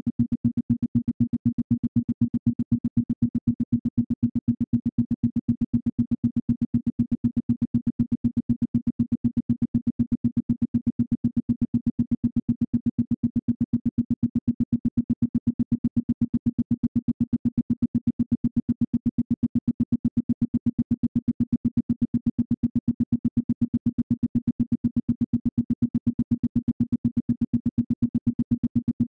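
Isochronic tone for brainwave entrainment: a single low synthesized tone switched on and off in rapid, evenly spaced pulses, several a second.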